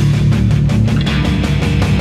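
Loud heavy rock music with electric guitar and drums, played to a fast, steady beat.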